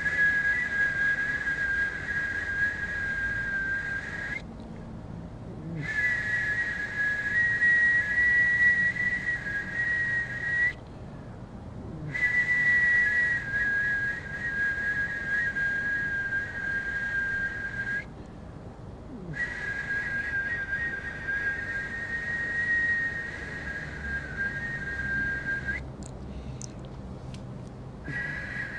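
A steady, high whistling tone made of two close pitches sounding together, held in stretches of about five to six seconds with short pauses between them.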